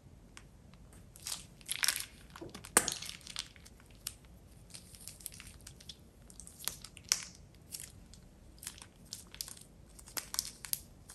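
Plastic piping bag crinkling and crackling as it is squeezed and handled, in irregular spells, with a sharp pop a little under three seconds in.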